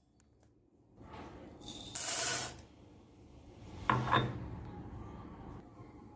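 Dry split chickpeas (chana dal) rattling and shifting in a steel vessel, in separate spells: a short hiss of grains about two seconds in and a sharper clatter with a brief ring about four seconds in.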